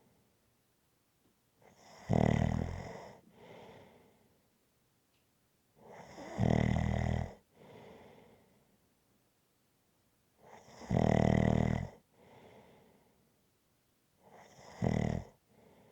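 A person snoring rhythmically: four loud, low, rattling snores about four seconds apart, each followed by a softer breath.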